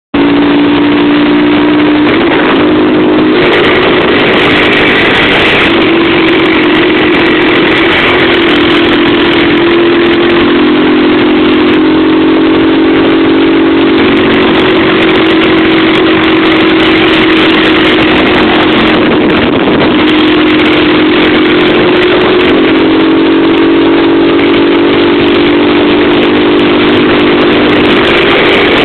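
Motorcycle engine running steadily while riding, its pitch drifting slightly up and down with small changes of speed, under a loud rushing noise of wind on the microphone.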